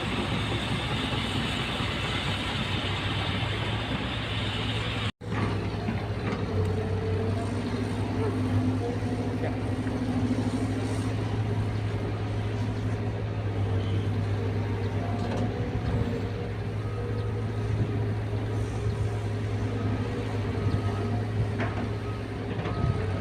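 Caterpillar 320 hydraulic excavator's diesel engine running steadily under work, a constant low drone, with pitched tones coming and going over it. The sound cuts out for an instant about five seconds in.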